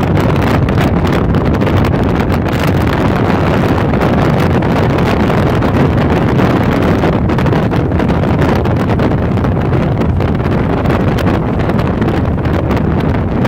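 Steady, loud wind buffeting on the microphone of a motorcycle moving at road speed, with the Harley-Davidson Electra Glide's engine running underneath.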